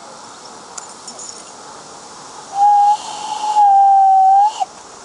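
Whistle of a 16 mm scale live-steam garden railway locomotive: a short toot, then a longer blast of about a second, each with a breathy steam hiss.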